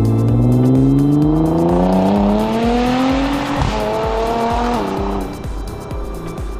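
Tuned Nissan GT-R R35's twin-turbo V6 accelerating past, its pitch climbing, dropping at a quick upshift about three and a half seconds in, climbing again, then falling away as it recedes.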